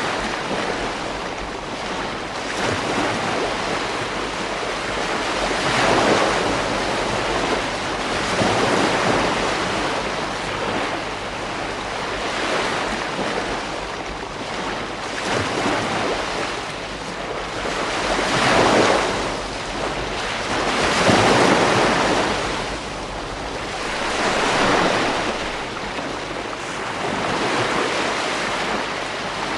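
Ocean waves breaking on a beach, the surf swelling and washing back every few seconds, with a few bigger breakers, over a steady low rumble.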